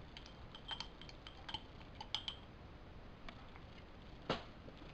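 Light clinks and clicks of metal electrodes and alligator clips against the rim of a glass jar as they are repositioned, a cluster of about ten in the first two seconds or so. One louder knock follows about four seconds in.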